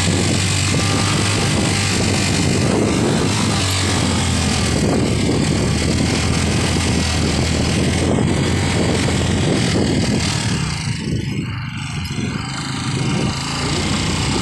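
Small motorcycle's engine running while riding along a rough concrete path. About eleven seconds in, the engine eases off and the sound drops for a couple of seconds before picking up again.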